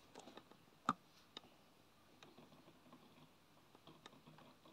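Near silence, with a few faint scattered clicks; the clearest is about a second in.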